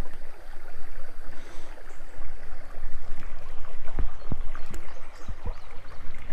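Small creek running and trickling over rocks, a steady rush of water with a low rumble underneath. A few short knocks come about four to five and a half seconds in.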